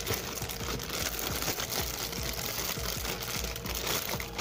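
Clear plastic bag crinkling continuously as a spinning reel is handled and unwrapped from it.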